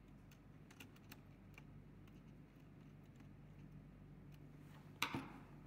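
Faint clicks of a screwdriver turning a screw in a panel meter's terminal block, tightening a power wire, with one sharper, louder knock near the end.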